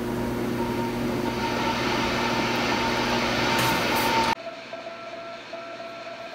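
National NC-173 tube shortwave receiver played through a small Bluetooth speaker: a loud hiss of HF static with a low hum, and a Morse code (CW) station's beat tone keyed on and off over it. The station is drifting because the receiver has not yet fully warmed up. About four seconds in, the sound cuts abruptly to a quieter level, and the keyed CW tone is now lower in pitch.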